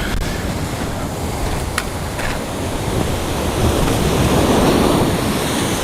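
Ocean surf washing on the shore, a steady rush that swells louder about four seconds in.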